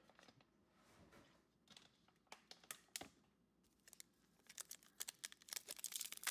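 Foil booster pack wrapper being handled and torn open: sparse soft clicks and crackles at first, turning to denser crinkling over the last second and a half.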